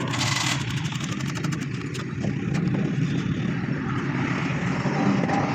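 A steady mechanical rumble, like a running engine or machine, with a short hiss at the start and scattered light clicks.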